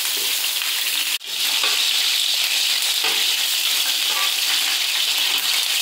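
Langoustines and king prawns frying in hot oil in a paella pan: a steady sizzling hiss. The sound cuts out for an instant about a second in.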